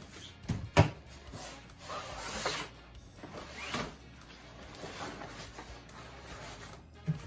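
Camping lamp parts and tripod legs being handled and packed into fabric storage bags. There is a sharp knock about a second in, then rustling, sliding swishes of the bags and parts.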